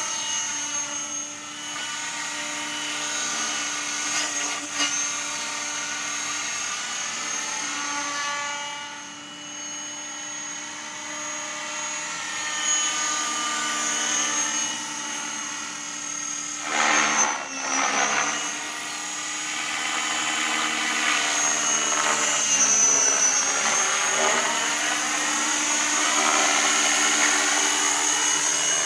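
Align T-Rex 550E electric RC helicopter in flight: the whine of its motor and rotor blades, rising and falling in pitch as it manoeuvres. A little past halfway through come two louder swells of blade noise.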